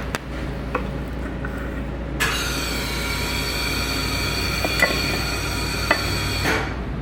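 A machine whirs loudly for about four seconds, with a steady high whine that starts and cuts off abruptly, over a low steady hum. A few sharp clicks or taps fall around it.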